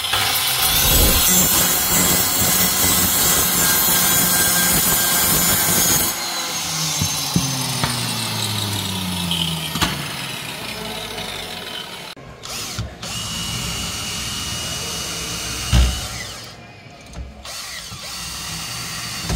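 Electric power drill running hard for about six seconds, then its motor winding down with a falling pitch. A single knock comes near the end.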